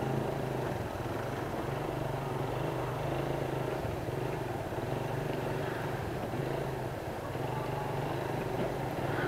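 Motorcycle engine running steadily while riding at low speed, an even hum heard from the rider's seat with road noise underneath.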